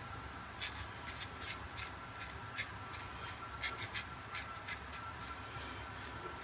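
Faint, short scraping strokes of a 3D-printed single-edge razor cutting beard stubble through lather, a string of quick strokes spread over the few seconds.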